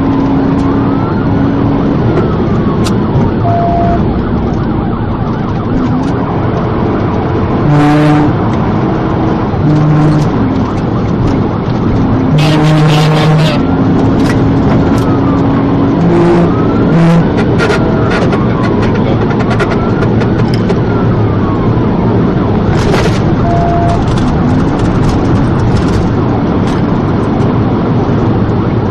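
Police patrol car's siren wailing in slow rising and falling sweeps over loud, steady engine and road noise during a high-speed pursuit.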